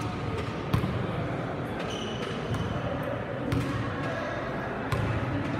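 A basketball bouncing a few times on a hardwood gym floor, the bounces spaced out unevenly.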